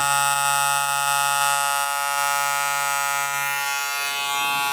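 Madeshow hair clipper running in turbo mode, its top speed: a steady, even motor buzz.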